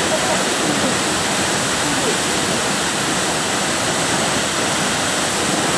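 Waterfall pouring: a steady, loud rush of falling water, with faint voices underneath.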